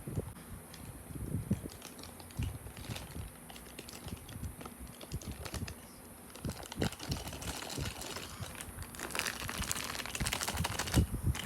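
Small clicks, taps and knocks of a toy truck and its packaging being handled, with a denser stretch of rustling and crinkling about nine seconds in.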